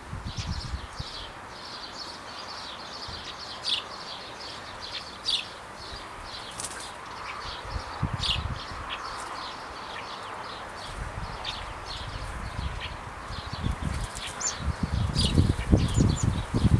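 Small birds chirping rapidly and continually, many short high chirps overlapping like a flock chattering. Low rumbling noise builds up near the end.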